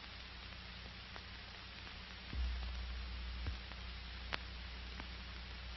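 Steady hiss and low hum of an old film soundtrack, with a few faint scattered clicks. A low rumble swells up about two and a half seconds in and lasts about a second.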